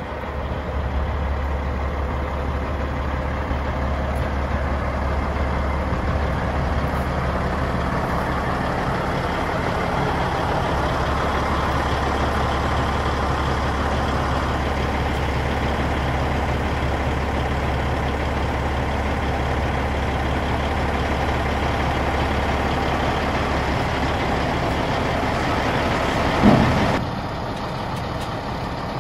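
Diesel engine of a 2001 Peterbilt 378 dump truck (CAT C15) running steadily with a low drone while the dump box stands raised. Near the end a brief loud thump comes, and the engine sound drops to a quieter level.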